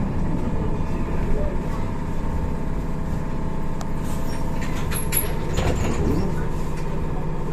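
Cabin noise inside a BKM 321 trolleybus: a steady low rumble with a constant whine from the electric drive. A few light clicks and rattles come about four to five seconds in.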